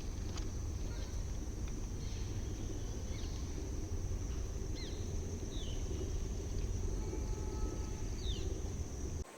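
Outdoor rural ambience: wind rumbling on the microphone under a steady high insect drone, with a few short, falling bird chirps. It all cuts off suddenly near the end.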